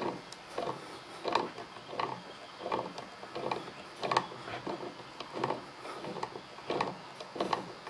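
Pliers twisting the threaded top terminal off an NGK spark plug held in a vise: a steady series of short metallic creaks and clicks, about one and a half a second, as the thread is turned stroke by stroke.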